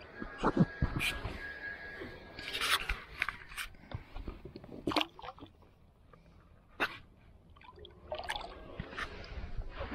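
Scattered knocks and clicks on a plastic kayak as a small largemouth bass is handled, then a splash as the fish is dropped back into the water about eight seconds in.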